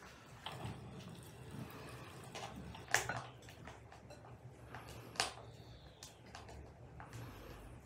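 Two sharp knocks about two seconds apart, over a faint low steady hum.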